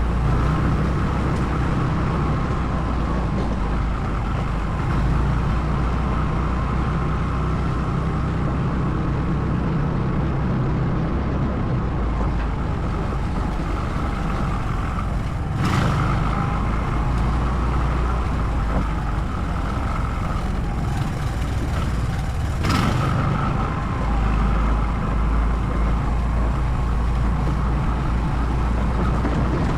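ATV engine running steadily as the quad is ridden, with two brief sharp knocks, one about halfway through and another some seven seconds later.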